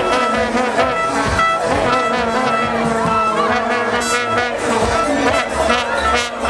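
Celebrating street crowd blowing fan horns: many held, brassy horn tones overlap one another over shouting and singing.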